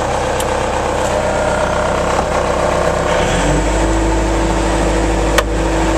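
Four-cylinder oil-cooled turbo Deutz diesel of a Bobcat 863G skid steer running steadily; about three seconds in the engine note changes and a steady whine joins it, as the hydraulics are worked. A sharp click sounds near the end.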